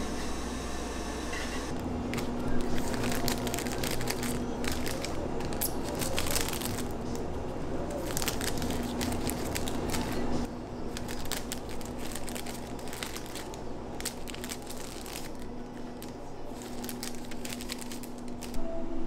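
Thin clear plastic bags crinkling and crackling as macarons are slipped into them one after another, starting about two seconds in, over a steady low hum.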